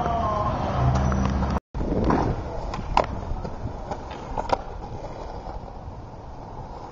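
Skateboard wheels rolling on concrete, with a few sharp board clacks, the loudest about three seconds in. The sound drops out briefly about a second and a half in.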